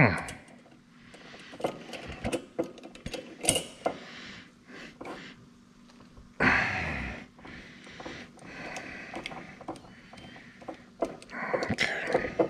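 Kitchen handling noises: scattered light clicks and knocks of bottle, glass and cookware being handled, with a sudden burst of hiss about six and a half seconds in that fades over about a second.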